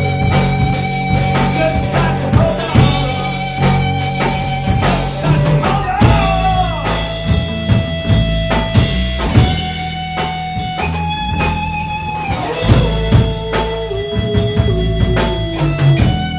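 A live rock band playing an instrumental passage. Long held lead guitar notes, one sliding down about six seconds in and stepping lower near the end, run over drum kit and bass.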